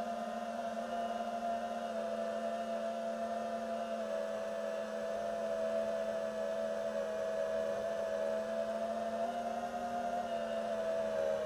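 FPV quadcopter motors and propellers whining at a steady, nearly constant pitch.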